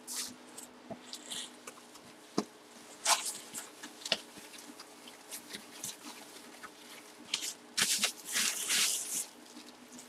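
White packing paper and a plastic bag rustling and crinkling as hands unwrap a football helmet, in scattered crackles and clicks with a denser stretch of crinkling near the end.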